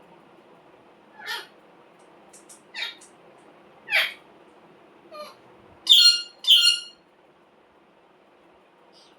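Green parrot calling: a few short, rough squawks, then two louder, ringing pitched calls in quick succession about six seconds in.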